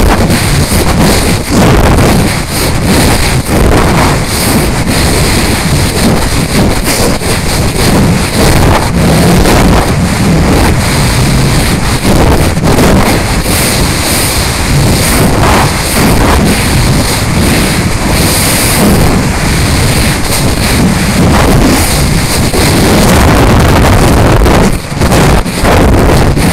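Loud rushing wind buffeting the microphone of a camera riding on a descending rocket's airframe under parachute, gusting and flickering unevenly throughout.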